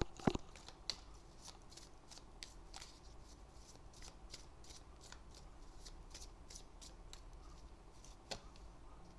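A deck of tarot cards being shuffled by hand, heard as faint, irregular flicks and clicks of the cards, with one louder click near the end.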